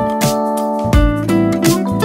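Background music: a plucked guitar-led instrumental with a steady beat.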